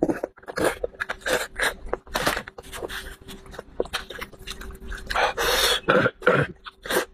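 Close-up wet chewing and mouth noises as a man eats braised sheep's head meat, with meat being torn from the bone by hand. A quick, irregular run of short noisy sounds, and a longer, louder one about five seconds in.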